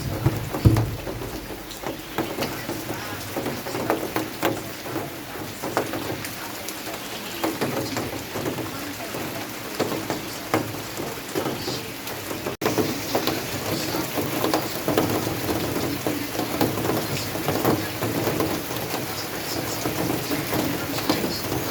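Steady rain falling, with many individual drops ticking on nearby surfaces. The sound drops out for an instant about twelve and a half seconds in.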